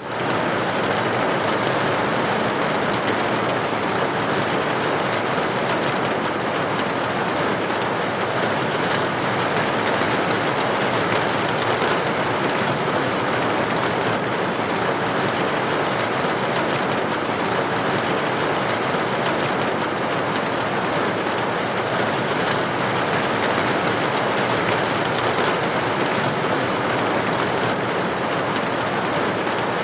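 Rain falling steadily on a roof: a dense, even hiss of drops with no let-up.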